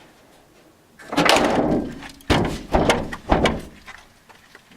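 A car's metal hood struck hard from above, heard from a microphone inside the engine bay: a heavy bang about a second in, then three sharp thumps about half a second apart.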